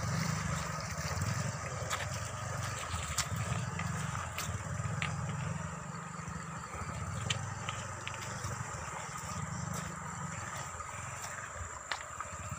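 Bullock cart rolling along, its wheels and frame giving a steady low rumble and rattle, with scattered sharp clicks and knocks.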